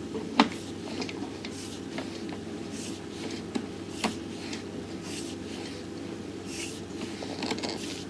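Sewer scope push cable and camera head scraping and knocking in the pipe, with irregular sharp clicks and rubs over a steady hum.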